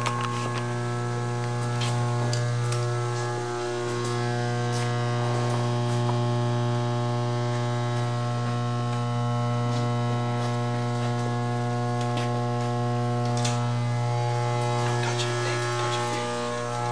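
Loud, steady electrical mains hum: a deep drone with a stack of higher steady tones above it, dipping briefly about four seconds in and again near the end. Faint scattered clicks and knocks run over it.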